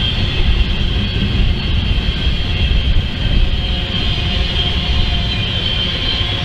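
Double-stack container train rolling past: a steady rumble of well cars and wheels on the rails, with a steady high-pitched ring over it.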